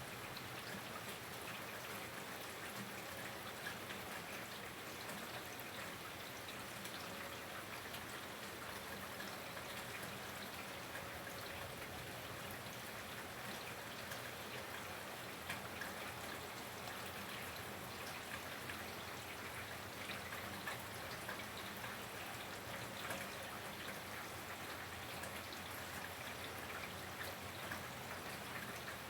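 Steady rain falling: an even hiss with scattered small ticks of drops landing.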